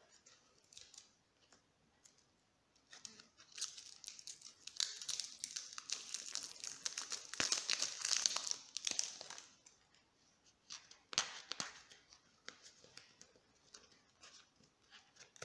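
Cellophane wrapper being torn open and peeled off a cigarette pack: dense crinkling and crackling, strongest from about four to nine seconds in, with a shorter burst around eleven seconds and a few scattered crackles after.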